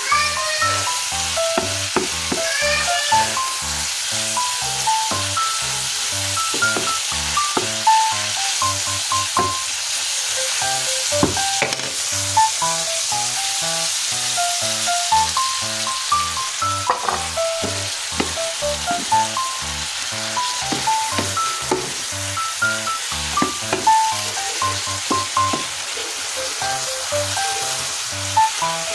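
Beef strips and string beans sizzling in a hot nonstick frying pan as they are stir-fried, with a wooden spatula clicking and scraping against the pan. Background music with a steady beat plays over it.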